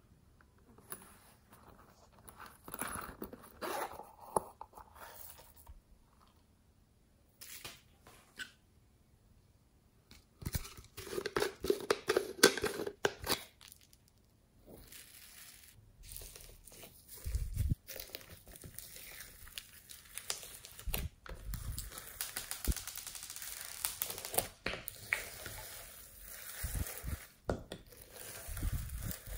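Glossy slime packed with foam beads and glitter being squished and folded by hand, making a dense crackling and popping, after foam beads pour into the glass dish with a burst of clicking about halfway through.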